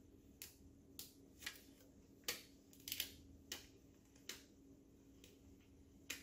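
Scattered sharp clicks of computer keys and a mouse, about nine spread irregularly over six seconds, over a faint steady hum.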